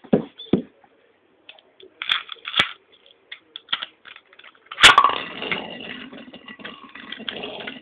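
A metal Beyblade spinning top launched into a plastic stadium: a few light clicks and taps, then about five seconds in a sharp clack as the top hits the dish, followed by the steady whirring scrape of it spinning on the plastic.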